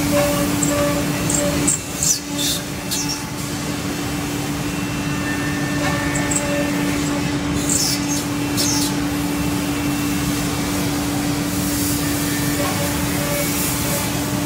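SEMAC SM-3725X2 CNC mortising machine running: a steady motor whir with a constant humming tone, and brief high hissing sounds now and then.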